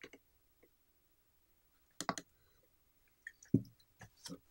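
Scattered light clicks and taps from hands handling a bass guitar's metal control plate and its potentiometers while contact cleaner is worked into the pots, with a duller knock about three and a half seconds in.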